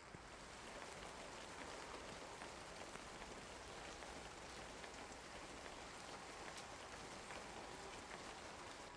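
Rain falling steadily, with many small separate ticks of drops striking.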